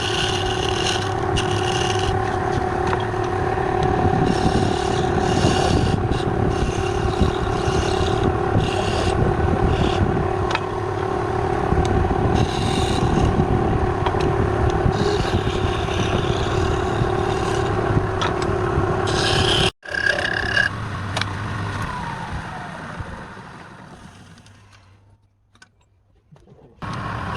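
A wood lathe runs with a steady hum while a hand-held turning tool scrapes against the spinning wood in repeated strokes. About two-thirds of the way in the sound breaks off abruptly, returns, and then fades away to near silence before starting up again right at the end.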